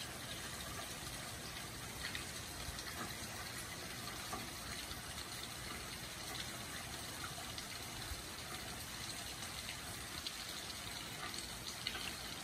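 Steady rain falling, an even hiss with scattered faint ticks of single drops.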